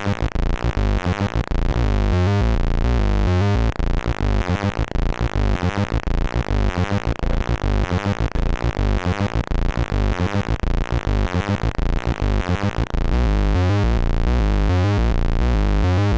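ARP Avatar synthesizer's oscillator 1 sounding a low, buzzy pulse-wave tone with its pulse width modulated from the envelope, cut into rapid repeated pulses, then holding steady about thirteen seconds in.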